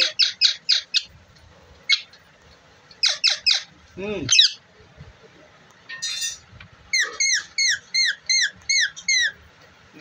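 Indian ringneck parakeet calling: short, shrill chirps in quick runs of three or four, a harsh squawk about six seconds in, and a run of about nine quick chirps near the end.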